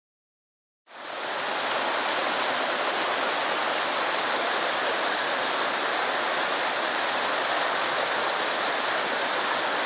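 Shallow, rocky trout stream running over stones, a steady even rush of water that fades in after about a second of silence.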